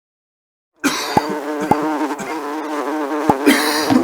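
Insect buzzing, like a fly or bee in flight. It starts abruptly under a second in and holds as a steady, slightly wavering drone, with a few brief downward swoops over it.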